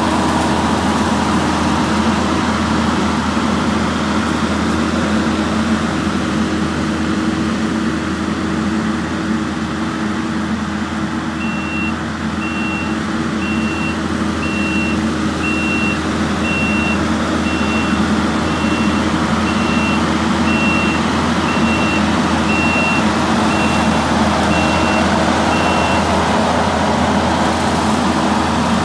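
Skid steer engine running steadily while mowing. About twelve seconds in, its backup alarm starts beeping about once a second for roughly fifteen seconds as the machine reverses, then stops.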